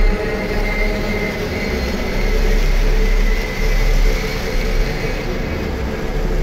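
A low, steady droning rumble with several sustained tones held over it: a dark ambient drone of horror-film underscore.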